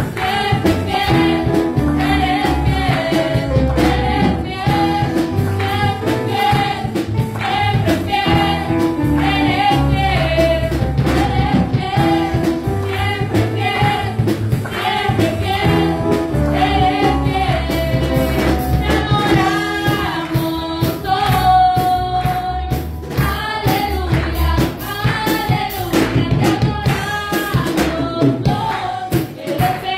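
Live gospel praise music: voices singing a worship song over a band with deep bass and a steady percussion beat.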